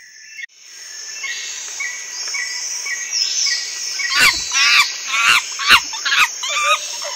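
Chimpanzee calling: a run of about seven loud, high-pitched calls, roughly two a second, starting about four seconds in. Before and under the calls, small chirps of birds or insects repeat steadily.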